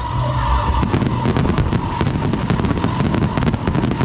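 Fireworks display: aerial shells bursting and crackling, many sharp bangs in quick succession over a constant low rumble.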